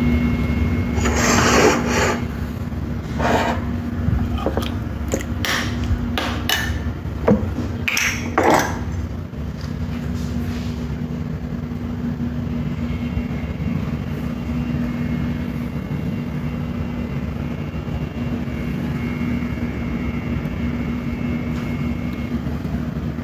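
Steady low mechanical hum, with several short knocks and scrapes in the first nine seconds and a faint high whine joining from about halfway through.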